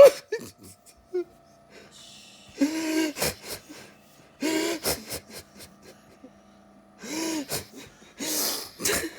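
Stridor: four harsh, strained breaths, each about half a second long with a crowing tone, coming every one and a half to two seconds. This is the sound of air being sucked through a narrowed upper airway.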